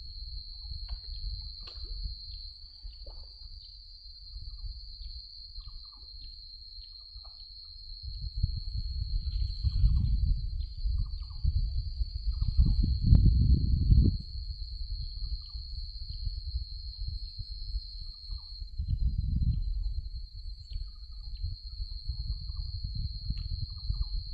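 A steady high-pitched insect drone over low wind rumble on the microphone. The rumble swells for several seconds just past the middle and again later, with scattered faint clicks.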